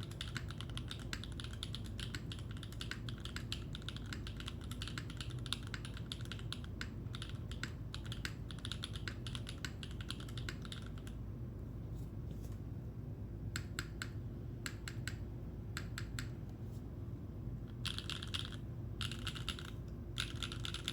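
Typing on a Leaf65 top-mount mechanical keyboard with Gateron Modern Gray switches and GMK Botanical keycaps. The keystrokes are fast and continuous for about the first half, then come in short, spaced-out bursts with pauses between them, over a steady low hum.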